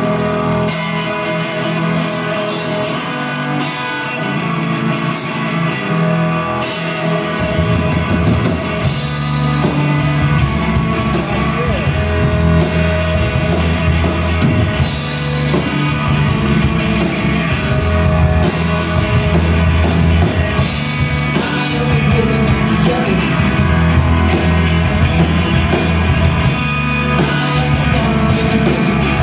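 Live rock trio of electric guitar, bass guitar and drum kit playing a blues-rock song. It opens sparsely with ringing guitar and a few cymbal hits, then the bass and a steady drum beat come in about seven seconds in and the full band plays on.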